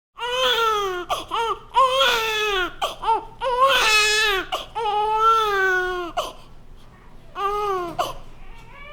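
Newborn baby crying: a run of rising-and-falling wails, several short cries then a longer one about five seconds in, a brief pause, and one more cry near the end.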